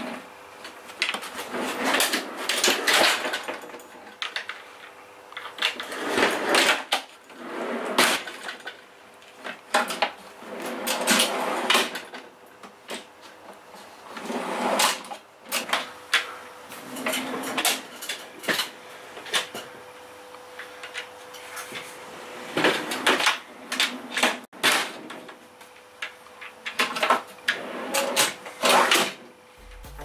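Telescopic metal drawer slides of a homemade fridge slide being pulled out and pushed back in several times, each rolling run ending in sharp metallic clacks.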